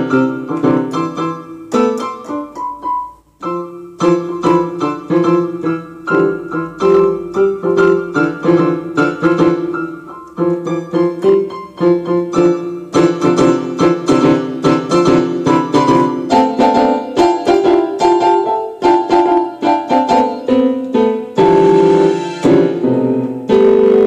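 Piano music played in quick, closely spaced notes, with a brief break about three seconds in.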